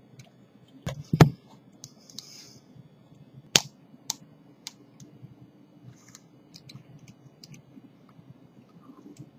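Metal dental scaler (a Montana Jack) working against a lower molar inside the mouth: irregular sharp clicks and ticks of the steel tip on tooth, the loudest pair about a second in and another strong click a couple of seconds later. This is hand debridement of the tooth and its gum pocket.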